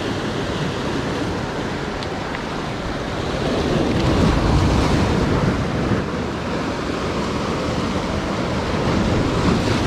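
Rough sea surf washing and breaking, with wind buffeting the microphone; the surf swells louder around the middle.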